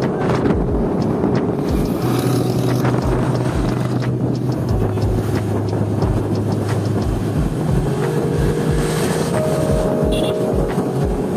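Background music with a steady low beat and sustained chords that change every few seconds.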